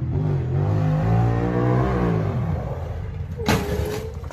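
Off-road vehicle engine revving, its pitch climbing and then dropping away, followed about three and a half seconds in by a sudden short burst of noise.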